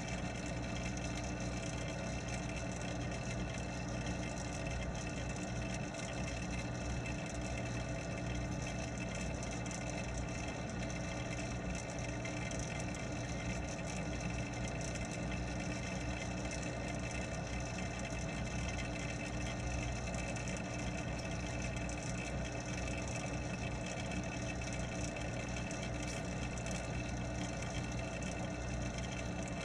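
Steady mechanical hum with several constant tones: a pond pump motor running, picked up through the water by an underwater camera.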